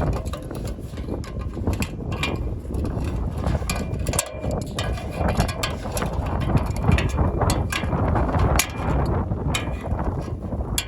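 Wind buffeting the microphone, with many irregular clicks and clanks of metal parts being handled.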